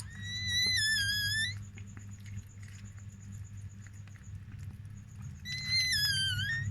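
Newborn chihuahua puppy crying: two high-pitched squealing cries, each about a second and a half long, one at the start and one near the end, with the pitch wavering and dipping. A steady low hum runs underneath.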